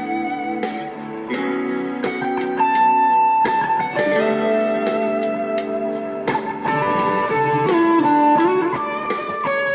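Electric guitar played through a Boss SD-1 Super OverDrive pedal, improvising in D major: sustained overdriven notes, with a note bent up and down about eight seconds in.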